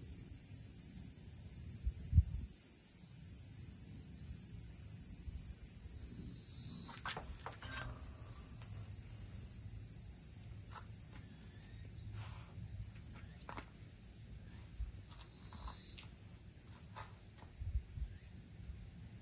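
A steady, high-pitched chorus of insects shrilling without a break. A single sharp thump comes about two seconds in, and a few faint clicks and low bumps follow later.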